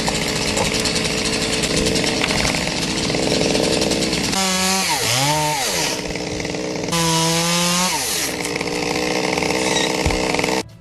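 Two-stroke chainsaw running at high revs, with its engine pitch dipping and climbing again twice in the middle as the throttle is eased and squeezed. It stops suddenly near the end.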